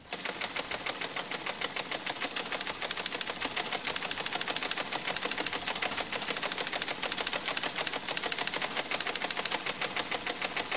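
Rapid, even typewriter-like clicking, several clicks a second: a computer-readout typing sound effect that goes with text being printed out letter by letter.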